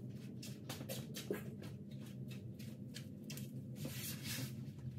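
Irregular light clicks and rustles, a few a second, from someone moving about under a trailer and handling tools, over a steady low hum.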